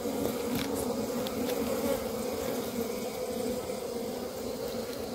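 A colony of Asian honey bees (Apis cerana) buzzing in a steady, low hum around their combs, their nest in a hollow tree trunk broken open.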